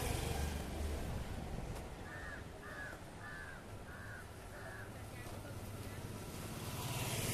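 A crow caws five times in an even series, a little over half a second apart, starting about two seconds in. Under it runs a steady low street rumble.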